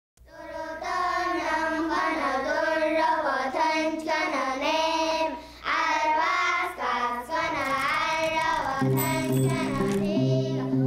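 A child's voice singing a slow melody with long, bending, held notes, fading in at the start. Low instrumental notes join beneath the voice near the end.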